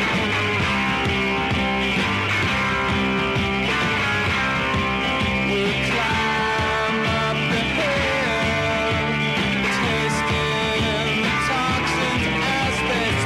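Psychedelic punk rock song playing at a steady loudness, with a full band sound throughout.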